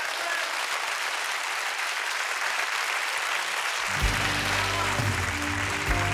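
A theatre audience applauding steadily. About four seconds in, music with sustained low notes starts underneath the applause.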